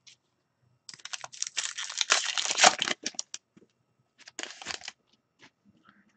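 Foil wrapper of an Upper Deck Artifacts hockey card pack crinkling as it is torn open: a dense rustle of about two seconds starting a second in, a few small ticks, then a shorter crinkle just past four seconds.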